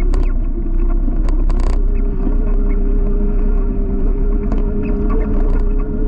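Waterfall rushing steadily and loudly, a dense low rumble with a constant droning tone running through it.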